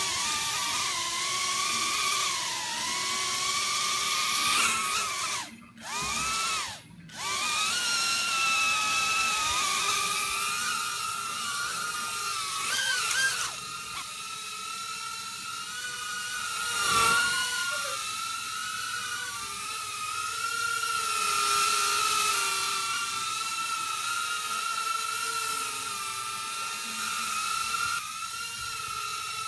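Tiny Whoop Inductrix FPV micro quadcopter's brushed motors whining in flight, spinning up at the start and then wavering in pitch with the throttle. The whine cuts out briefly twice, around six and seven seconds in.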